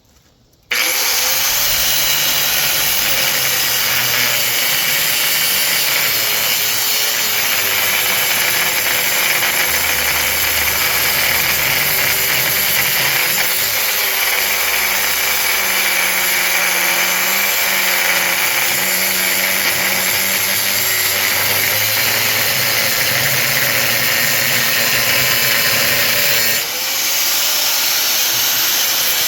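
Power tool cutting through the metal of a large electric motor, starting about a second in and running steadily with a wavering whine under a loud hiss, briefly dipping near the end.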